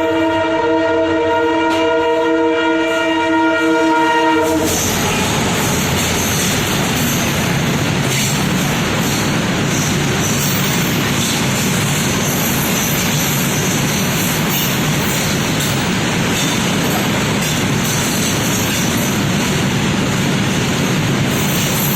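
Diesel locomotive's air horn sounding one long chord for about four and a half seconds, then cutting off abruptly. The loud, steady rumble and rattle of the moving train follow.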